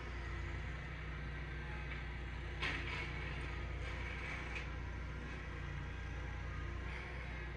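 Steady low room hum, with one brief scuff about two and a half seconds in.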